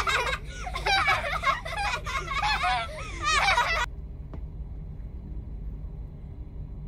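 High-pitched giggling laughter sound effect, edited in, running for about four seconds before cutting off abruptly. Under it and after it is the low steady hum of idling engines.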